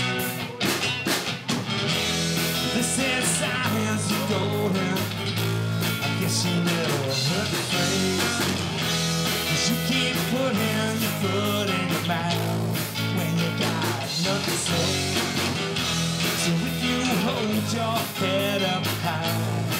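Live rock band playing: electric guitar over electric bass and a drum kit, heard through the PA.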